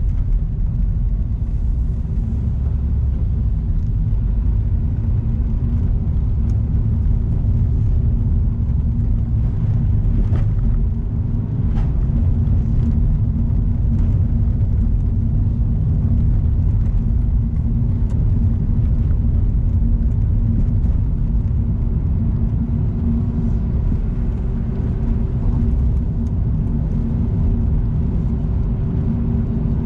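Car on an expressway: a steady low rumble of road and engine noise with a droning hum, and a few faint clicks about a third of the way in.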